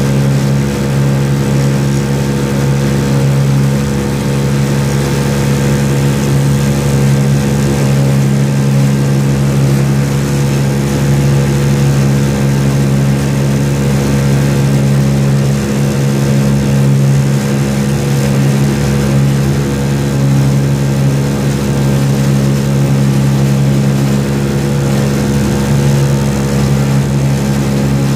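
Boat engine running steadily at a constant speed, with an even, unchanging hum.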